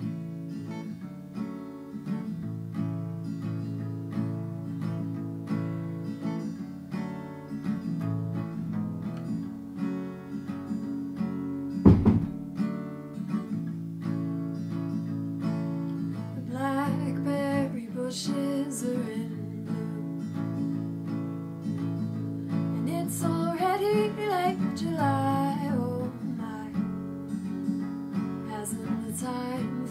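Acoustic guitar with a capo, strummed in a steady pattern; a woman's singing voice comes in over it about seventeen seconds in and again later. A single sharp thump stands out about twelve seconds in.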